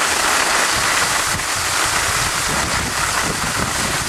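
Steady rushing noise of wind on the microphone and skis sliding over packed snow as the camera skis downhill behind the group.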